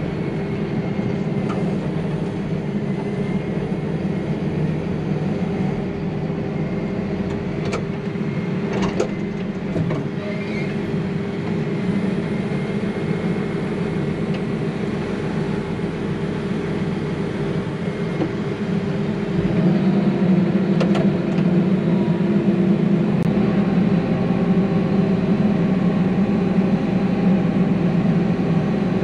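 Tractor engine running, heard from inside the cab as a steady drone that grows louder about two-thirds of the way through, with a few light clicks.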